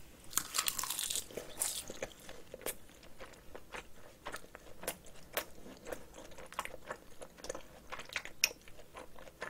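Mouth-close chewing of a bite of rice wrapped in crisp roasted seaweed (gim) with spicy cockle sauce: a dense crackling crunch in the first couple of seconds, then scattered wet mouth clicks and crunches as she keeps chewing.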